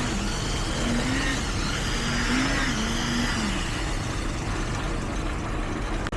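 Engines of heavy construction vehicles running steadily.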